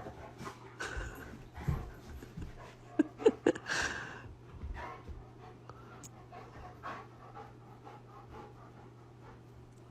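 A dog panting in uneven breaths, loudest about three to four seconds in, with a few short voiced sounds around the loudest part; the panting grows fainter in the second half.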